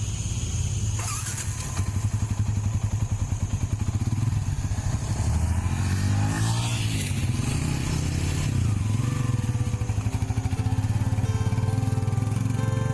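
Motorcycle engine running while riding, with a change in engine pitch about halfway through.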